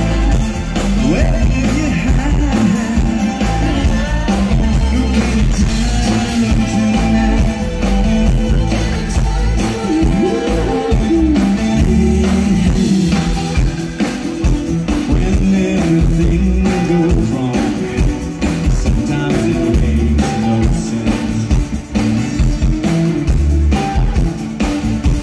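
Live rock band performing, with a male lead singer singing over drums and guitar, heard from within the audience.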